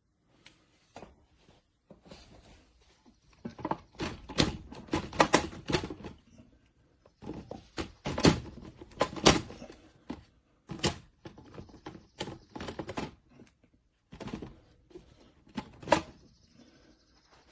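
A series of irregular knocks and clunks, coming in quick clusters with pauses between them, the loudest a little past halfway.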